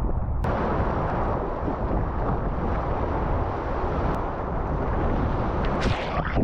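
Small surf waves breaking and washing up the sand, heard close up with a deep rumble of water and wind on the microphone. Near the end a wave washes over the microphone with a brief hiss.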